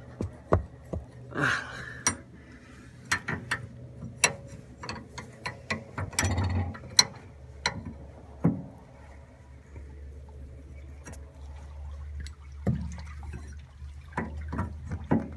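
Scattered, irregular clicks and knocks from hand-tightening a steering cable fitting on an outboard motor until it bottoms out, over a steady low hum.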